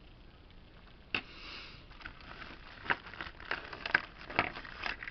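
Plastic pacifiers being handled and set down on a hard desk: a sharp click about a second in, a brief rustle, then a run of small irregular clicks and light plastic crinkling.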